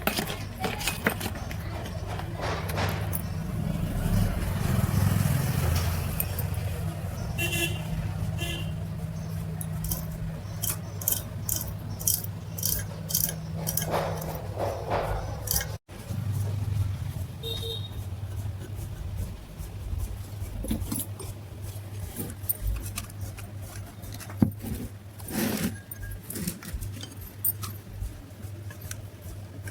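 Small metal parts and tools being handled, with frequent light clicks and clinks, over a steady low electric hum.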